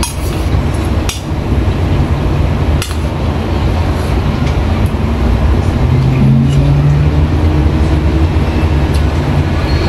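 Steady low background rumble, with a metal spoon clinking twice against a stainless steel bowl in the first three seconds. About six seconds in, a low hum rises over the rumble.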